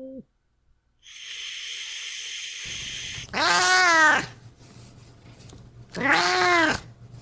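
Angry cat hissing for about two seconds, then giving two loud, drawn-out yowls, each about a second long and rising then falling in pitch.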